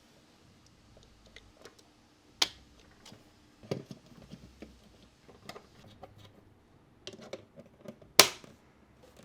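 Scattered small clicks, taps and light handling noises from working on a wall switch during installation, with two sharper clicks, one about two and a half seconds in and one near the end.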